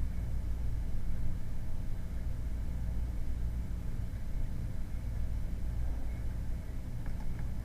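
Steady low rumbling background hum, with two faint clicks near the end.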